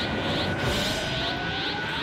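Animated energy power-up sound effect: a dense, steady rushing noise under a thin whine that rises slowly in pitch from about half a second in, as a red aura flares up.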